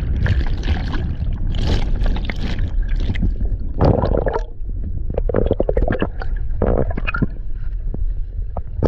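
Churning water and masses of bubbles in a boat's wake, heard underwater: a heavy low rumble with dense crackling and gurgling of bursting bubbles.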